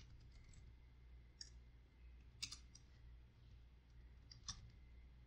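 Faint computer keyboard keystrokes: a few scattered short clicks over a low steady hum.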